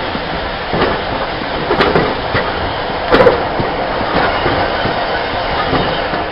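Diesel-hauled passenger train, Class 46 'Peak' locomotive D182 and its coaches, passing close by with a steady running rumble. Wheels click over the rail joints a few times, loudest about three seconds in.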